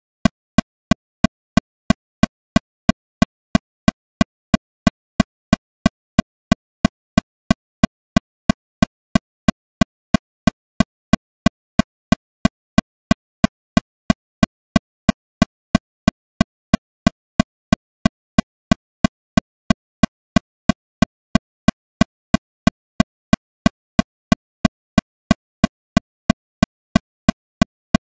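Metronome clicking steadily at 182 beats per minute, about three sharp clicks a second with silence between them.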